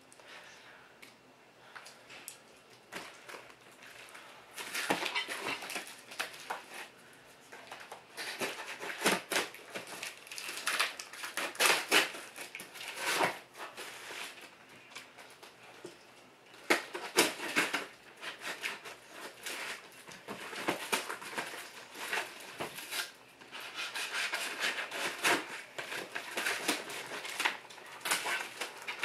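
A cardboard shipping box being opened and handled by hand: flaps pulled, packing tape torn and cardboard scraping and rustling in irregular bursts, quiet for the first few seconds.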